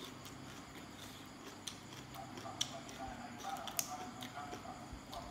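Fresh water spinach (morning glory) stems snapped and pulled apart by hand: irregular, crisp snaps over a quiet background, the sharpest about four seconds in.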